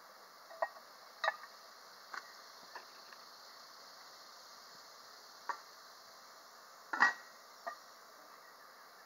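Spoon scraping and clinking against a cast-iron Dutch oven as hash browns, bacon and onion are stirred, with a faint sizzle underneath. About seven short knocks and scrapes, the loudest about seven seconds in.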